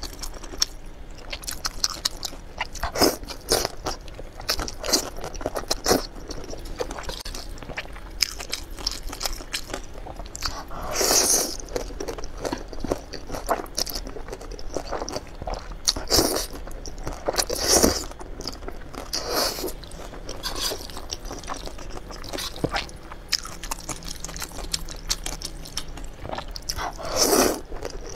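Close-miked eating sounds: chewing and slurping of wide noodles in red chili sauce, with several louder slurps of about a second each.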